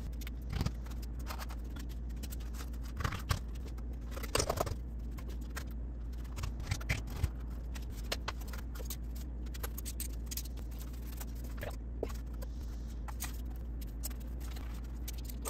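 Scattered light taps, clicks and scrapes of a strip of foam insulation board being handled and cut with a knife, over a steady low hum.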